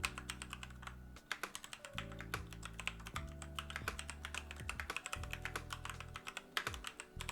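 Mechanical keyboard with tactile switches being typed on, a quick irregular run of keystroke clacks several a second, over background music.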